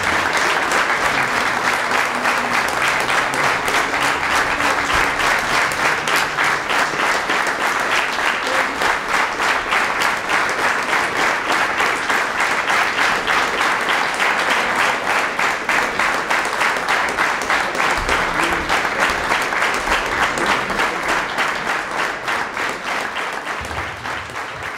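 Audience applauding in a steady rhythm, fading away near the end.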